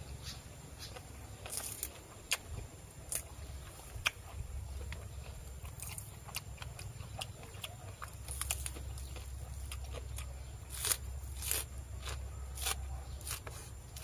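A person chewing and biting crunchy food, with irregular crisp crunches and clicks, a few louder ones near the middle and toward the end.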